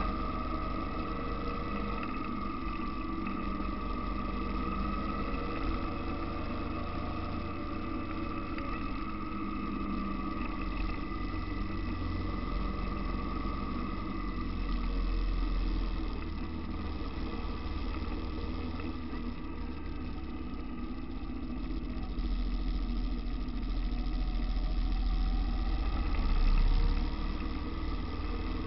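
Motorcycle engine running steadily while riding, heard through a camera mounted on the bike, with a constant high tone over the low rumble; it swells briefly near the end.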